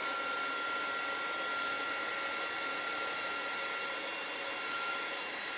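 Small handheld craft heat tool running steadily: a constant rush of blown air with a thin steady whine, heating the wax finish on chalk-painted wooden tags.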